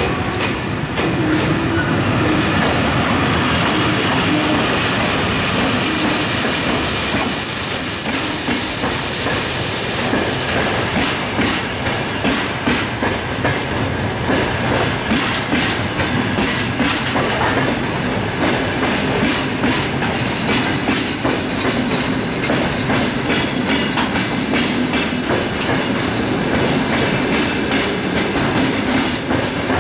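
EP1M electric locomotive passing with its passenger train, then a long string of passenger coaches rolling by. From about a third of the way in, their wheels keep up a run of clicks over the rail joints.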